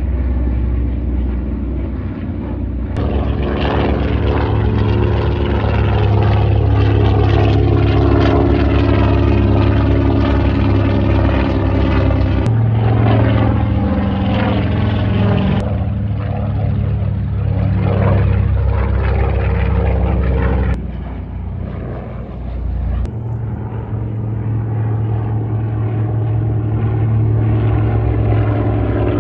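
Propeller-driven warbird aircraft flying over: a loud, steady engine drone whose tone sweeps as the plane passes. The sound changes abruptly several times, as between separate passes.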